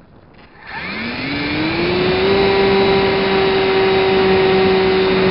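Radio-controlled FPV plane's motor and propeller throttling up, heard from the camera on board: a whine that rises in pitch for about a second and a half, starting just under a second in, then holds steady at full power as the plane climbs.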